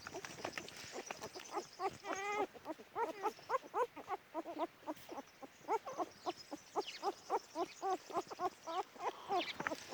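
A litter of puppies whining and yelping: many short, high, overlapping cries several times a second, with one longer wavering whine about two seconds in.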